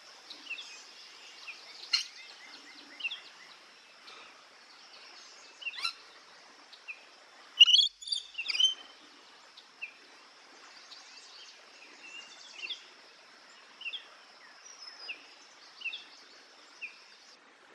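Birds calling: short chirps repeated about once a second, with a louder cluster of calls about eight seconds in, over a steady high-pitched background tone that stops near the end.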